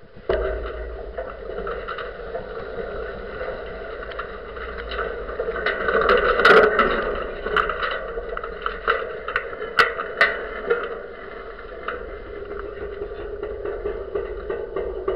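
Steady wind and rigging noise on a camera mounted high on a sailing yacht's mast as the boat sails on. It carries a low rumble and several sharp knocks, and is loudest about six and a half seconds in.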